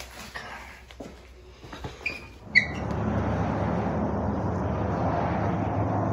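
A few light knocks and clicks, then a sharp clack with a brief ring about two and a half seconds in. After it a steady, much louder rumble of outdoor vehicle noise with a low hum starts and carries on.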